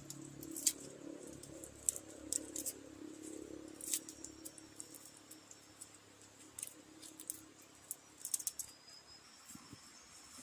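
Irregular sharp clicks and light rattling, some in quick clusters, with a faint low hum through most of it.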